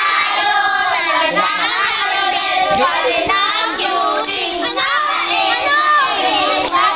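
A group of children singing together, many voices overlapping.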